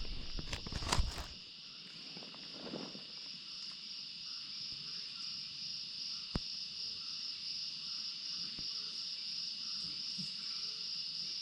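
A steady, high-pitched chorus of insects chirring in the forest. A few knocks sound near the start, and a single sharp click comes about six seconds in.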